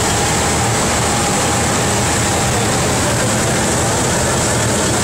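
A column of tanks driving past close by, their heavy engines running in a loud, steady rumble.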